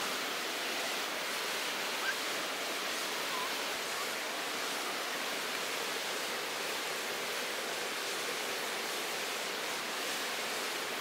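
Steady rush of a flowing river, an even, unbroken wash of water noise.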